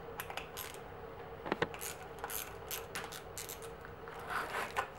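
Small clicks and light scraping of a loosened rear shifter and SRAM Guide brake lever being worked and shifted along a mountain bike's handlebar, with one sharper click about one and a half seconds in.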